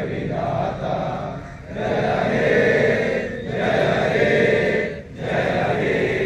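Crowd of men chanting a protest slogan in unison: about four chanted phrases, each roughly a second and a half long, with short breaks between.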